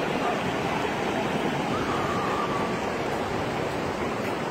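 Ocean surf breaking and washing up the beach: a steady, even rushing noise.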